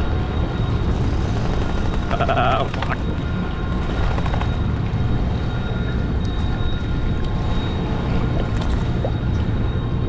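Steady rumble of a 92-foot Viking sportfishing yacht's engines and rushing water as the boat runs. A short high squeal comes about two and a half seconds in.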